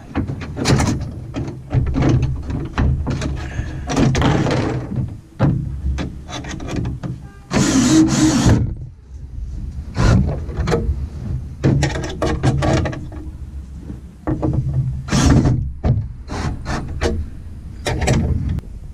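A wooden canoe seat is being fitted into its hangers: a string of knocks and clatters of wood and hardware against the hull. A cordless drill runs in short spells to drive the mounting fasteners, the longest about eight seconds in and another near fifteen seconds.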